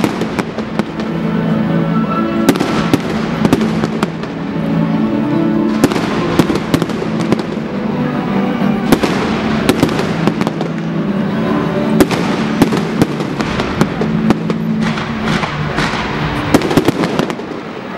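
Fireworks display: aerial shells and crackling stars going off in a dense run of sharp bangs, easing off near the end. Music with held notes plays underneath.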